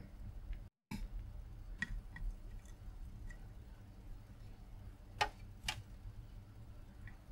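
Quiet bench work with a low steady hum and a few faint, light clicks and ticks from the soldering iron and solder wire being worked against the circuit board, the two sharpest about five seconds in. The sound cuts out completely for a moment just before one second in.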